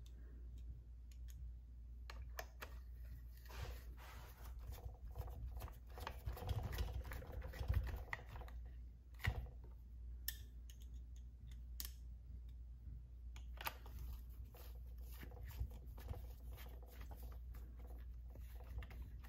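Faint scattered clicks, taps and light scrapes of hand tools and plastic parts, a nut driver running down the two 8 mm nuts that hold a chainsaw's air filter holder, with a few sharper ticks along the way.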